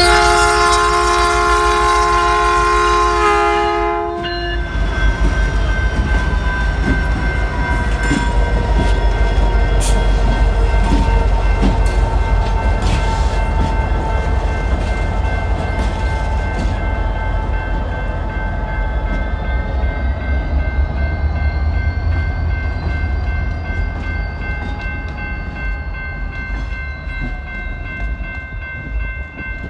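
A P2 air horn (the Metrolink-type horn) on a BNSF GP60 sounds a multi-note chord for about the first four seconds, then cuts off. The EMD GP60 diesel locomotives then rumble past with a steady high squeal from the wheels and some clanks. The sound eases off toward the end.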